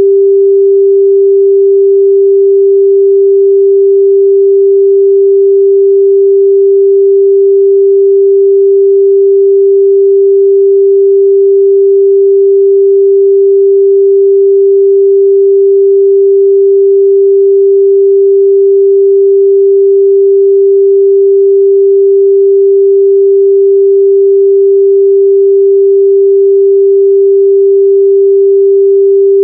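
A pure 394 Hz sine-wave test tone, held steady and unchanging at a constant loud level.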